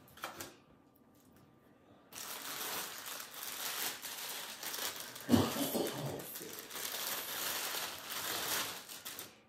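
A plastic mailer package crinkling and rustling as it is handled and opened, starting about two seconds in, with one brief thump about halfway through.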